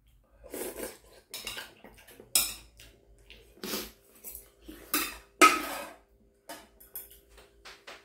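Noodle-eating sounds: short slurps and chewing noises between clinks of metal chopsticks and a spoon against a ceramic bowl. The loudest clink comes about five and a half seconds in.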